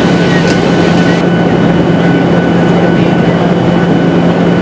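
Steady jet airliner cabin noise heard from inside the cabin: the roar of the engines and rushing air with a constant low drone. The upper hiss drops off about a second in.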